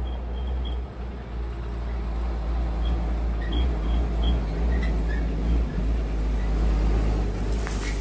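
A farm tractor driving past, its engine a steady low drone that grows louder in the second half.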